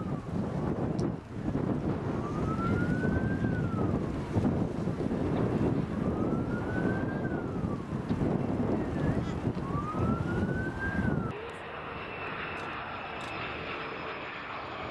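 Qantas Boeing 787-9's jet engines rumbling as it rolls along the runway, with wind buffeting the microphone and a siren-like tone rising and falling about every three and a half seconds. About eleven seconds in it gives way to the quieter, steady whine of a Fokker 100's Rolls-Royce Tay engines on approach.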